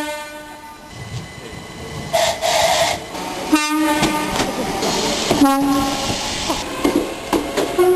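A railway locomotive's two-tone air horn. A long note ends about a second in, then two short blasts follow about two seconds apart, the second a little lower in pitch, over the noise of a moving train.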